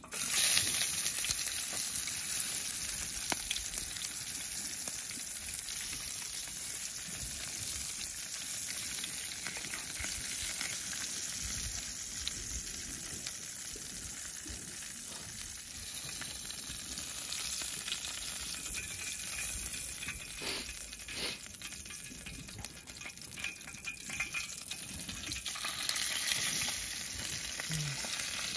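A whole gray snapper frying in oil in a metal pan over campfire embers: a steady sizzle that starts suddenly as the fish goes into the hot oil, with a few pops later on.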